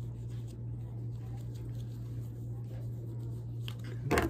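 Soft rubbing and light handling of a disinfecting wipe on a battery pack, over a steady low hum. A short, louder knock or clatter comes near the end.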